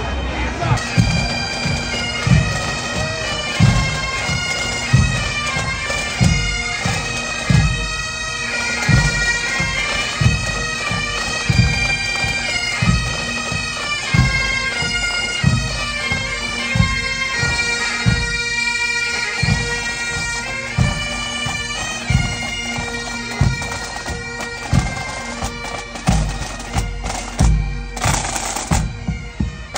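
Marching pipe band: bagpipes playing a tune over their steady drones, with a drum beating an even marching time underneath.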